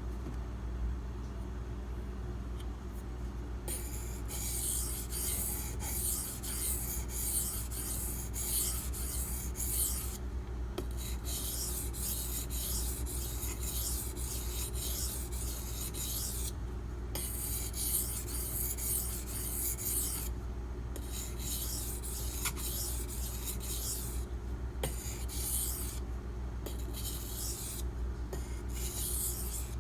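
A D2 steel knife blade stroked back and forth on a whetstone during sharpening: a rasping scrape about two strokes a second, starting about four seconds in and coming in runs with short pauses. A steady low hum sits underneath.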